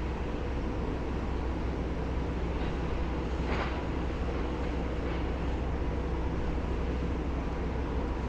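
Steady low rumble of wind buffeting the microphone, with a demolition grab excavator's diesel engine running underneath it.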